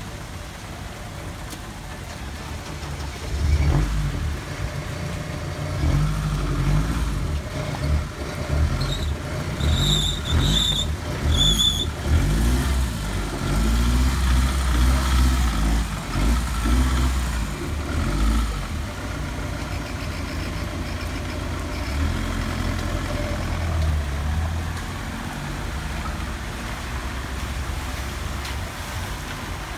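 A van's engine running close by in heavy rain, over the steady hiss of rain on a flooded street. The engine is loudest for the first half, then fades as the van drives off through the water. A few short high-pitched squeaks come about ten seconds in.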